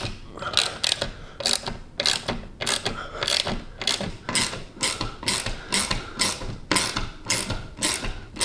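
Hand socket ratchet wrench clicking in short, quick strokes, about three a second, as the TV mount's wall-plate bolts are driven into the wall studs.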